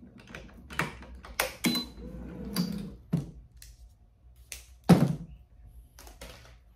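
Scattered clicks and knocks from a racquet stringing machine's tensioner and clamps as the last cross string is tensioned and released, the loudest knock about five seconds in.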